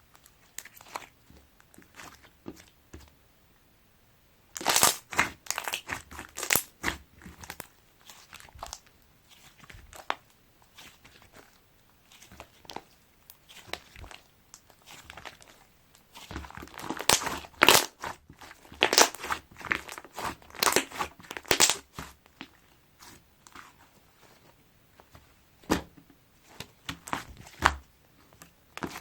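Slime with clay mixed into it being squeezed and kneaded by hand, giving clusters of sticky clicks and crackles with quiet pauses between.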